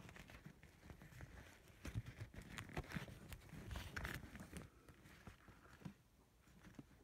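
Faint rustling and knocking of a handheld camera being carried and fumbled against clothing, with soft footsteps, busiest in the middle.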